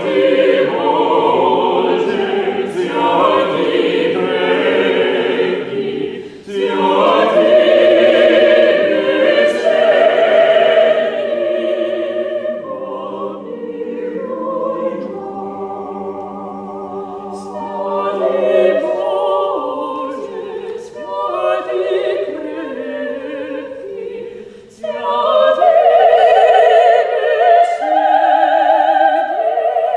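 Choir singing sustained chords, loud at first, softer through the middle, then swelling loud again near the end.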